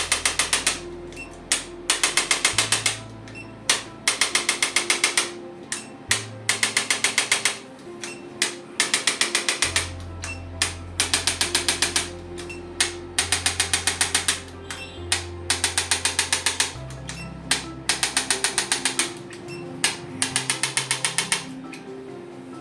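Chiropractic adjusting gun firing rapid trains of sharp clicks against the spine, each train lasting about a second at roughly ten clicks a second, repeated about a dozen times. Background music with low bass notes plays underneath.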